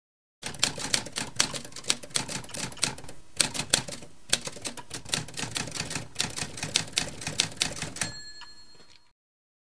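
Manual typewriter keys striking in an irregular run of sharp clacks, several a second. Near the end the typing stops and a short bell rings, like the typewriter's carriage bell.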